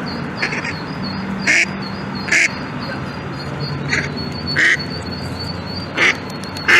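Mother duck quacking in short, separate calls, about seven at uneven spacing, the agitated calling of a hen whose ducklings are trapped in a storm drain.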